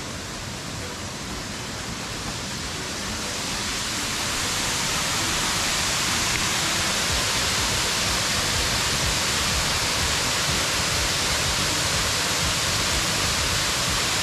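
Waterfall rushing steadily, a continuous hiss of falling water that grows louder over the first few seconds and then holds steady.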